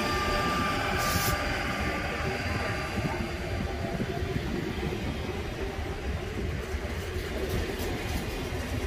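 A Z2N double-deck RER D electric multiple unit running past, its electric motor whine and wheel rumble fading over the first few seconds. A brief hiss comes about a second in.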